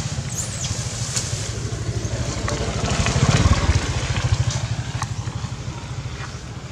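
A motor vehicle's engine rumbling, low and evenly pulsing, swelling to its loudest about halfway through and then fading. A few faint clicks sit on top.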